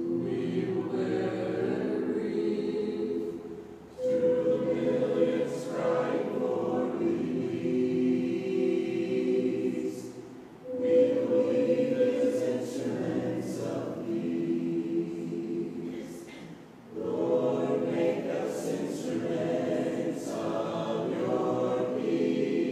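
Congregation singing a hymn a cappella, in phrases of about six seconds with short breaks between them.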